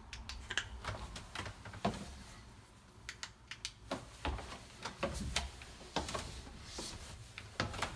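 Footsteps going down steep wooden basement stairs: uneven knocks and clicks on the treads, sparser for a moment near the middle.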